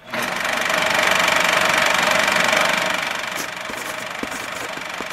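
Film projector sound effect running: a loud, steady mechanical whirr with a fast, even clatter. It starts abruptly and eases slightly about three seconds in.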